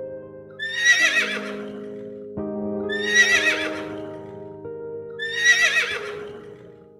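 A horse whinnying three times, each call a high, wavering neigh about two seconds apart, over soft background music with held keyboard tones.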